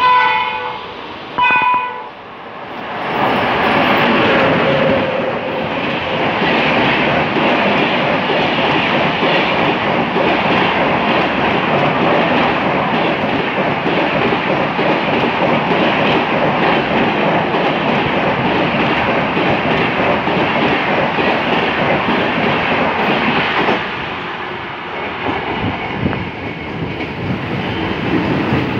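Train horn sounds two short blasts, then a Rajdhani Express of LHB coaches runs through the station at speed: a long, loud rush of the coaches passing, easing off about 24 seconds in.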